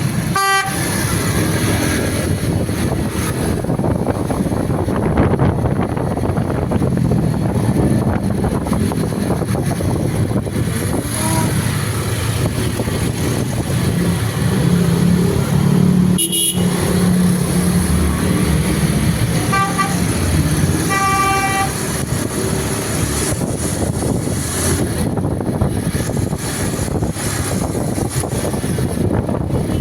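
A bus running, with a steady engine and road noise throughout. A Basuri multi-tone air horn sounds short tones once near the start and again about twenty seconds in.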